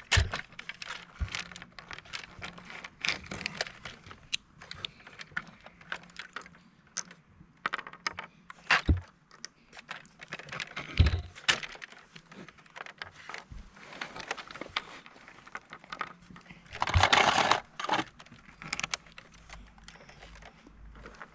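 Small plastic toy pieces clicking and clattering on a wooden table as they are handled, picked up and set down, with a few heavier knocks of plastic toys on the boards. A louder rush of noise lasts about a second near 17 seconds in.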